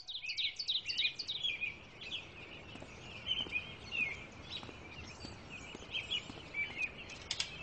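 Many small caged birds chirping and twittering together, their short calls overlapping without pause, with a few sharp clicks near the end.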